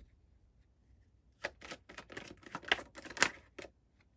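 Tarot cards being handled as a card is drawn off the deck: a quick run of about a dozen sharp card clicks and snaps lasting about two seconds, starting about a second and a half in, with the loudest snap near the end.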